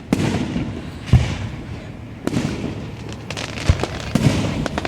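Fireworks going off in quick succession: a string of sharp booms, four or five in all, with crackling between them.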